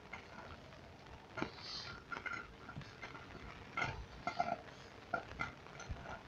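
Irregular knocks, splashes and short gurgles as a man works a tool in a blocked street drain under flood water.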